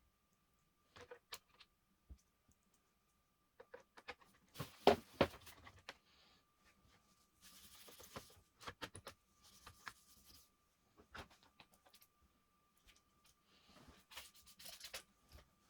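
Small clicks, taps and knocks of laptop parts and tools being handled during disassembly, with a few short hissy scraping or brushing sounds. The loudest is a quick cluster of knocks about five seconds in.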